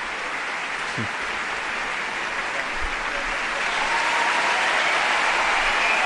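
Large arena crowd applauding, the applause swelling about halfway through.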